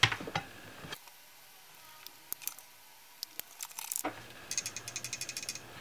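A loose part rattling inside the sealed plastic housing of an AEMC (Chauvin Arnoux) SL261 clamp-on current probe as it is shaken: a quick run of light clicks, about a dozen a second, in the last second and a half, after a few single clicks. The rattle is the sign of a loose piece, perhaps a screw, shut inside a glued or welded part of the probe, a manufacturing defect.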